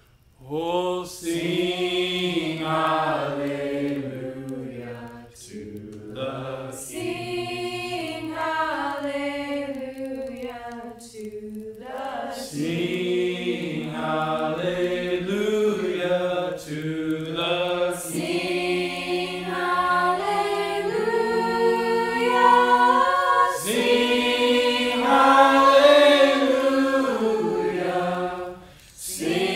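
Voices singing a slow worship chorus in long held notes, with short breaks between lines.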